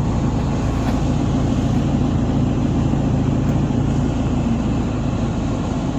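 A motor vehicle's engine running steadily, a continuous noisy drone with no change in pitch.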